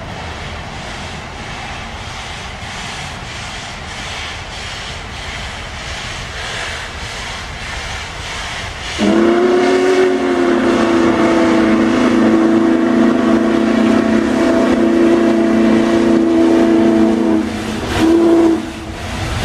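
Union Pacific Big Boy 4014, a 4-8-8-4 steam locomotive, runs past with a steady rumble and hiss. About nine seconds in, its steam whistle sounds one long blast of about eight seconds, then one short blast.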